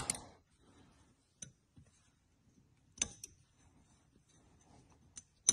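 A few sparse, light metallic clicks of steel synchronizer hub parts being handled on the bench: a faint click about a second and a half in, a sharp pair about three seconds in, and two more near the end, the last the loudest.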